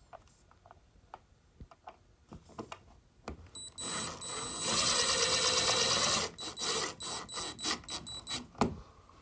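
Cordless power drill driving a screw into the wall. It gives a couple of short bursts, then runs steadily with a high whine for about two and a half seconds, then a string of short trigger bursts, with scattered clicks of handling before and a sharp click near the end.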